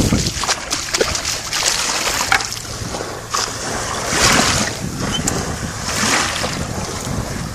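Shallow water sloshing and splashing, with louder surges about four and six seconds in, over wind noise on the microphone. A few small sharp clicks near the start.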